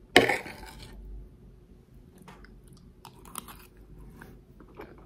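A person takes a spoonful of rice with aubergine and dried fish and chews it, with a short loud mouth sound as the spoon goes in and then soft, scattered mouth clicks.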